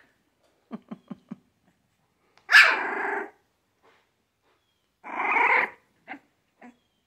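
Three-week-old puppies barking at play: two loud, short puppy barks about two and a half and five seconds in, with a few faint grunts about a second in and two tiny yips near the end.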